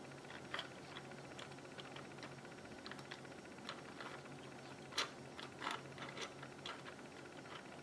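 Faint plastic clicks and clacks from a 3D-printed manual transmission model's shift linkage as the shifter is moved side to side and back and forth to select rails and engage gears, with a sharper click about five seconds in.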